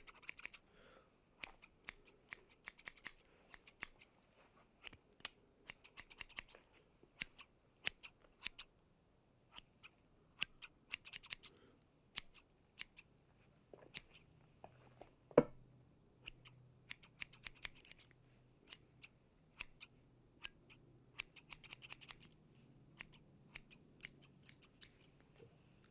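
Hair-cutting scissors snipping through hair in short irregular runs of crisp high snips, several in quick succession, then brief pauses. About halfway through there is one louder knock.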